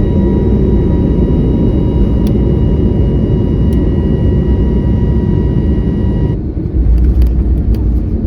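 Jet airliner noise from an Airbus A321neo with geared turbofan engines: a steady low rumble with a steady high whine over it. About six seconds in the whine cuts off, and the rumble continues with a few sharp clicks.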